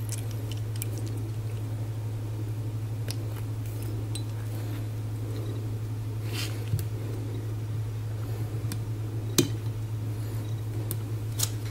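Scattered small clicks and ticks of a Glock slide's rear cover plate and spring-loaded plunger being handled and pressed with a small punch, the sharpest click about nine seconds in. A steady low hum runs underneath.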